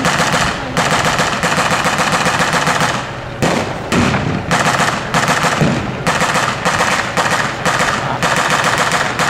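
Machine gun firing blanks in long rapid bursts, with a short break about three and a half seconds in.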